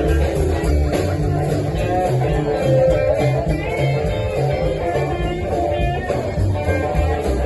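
A live band playing an instrumental stretch of a blues number, guitar to the fore over a moving bass line.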